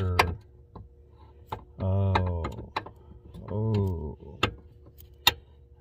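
Scattered light clicks and taps of metal parts being handled at the upper steering shaft under the dashboard, about seven in all, the sharpest near the end.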